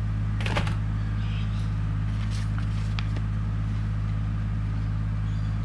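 A steady low hum runs throughout, with a few faint clicks.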